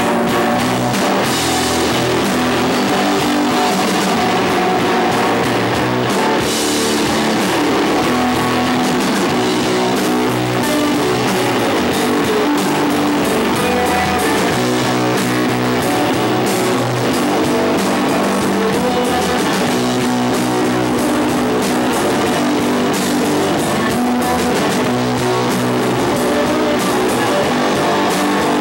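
Live rock band playing: electric guitar through a valve amp, bass guitar and drum kit, steady and loud throughout.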